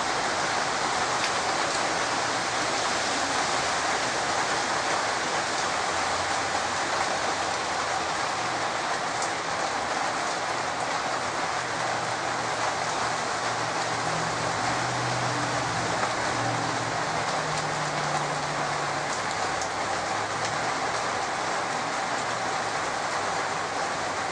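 Heavy rain falling steadily, with a faint low hum coming and going in the middle.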